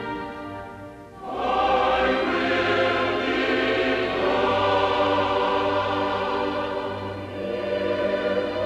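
Music with a choir singing, which comes in strongly a little over a second in after the earlier music briefly fades.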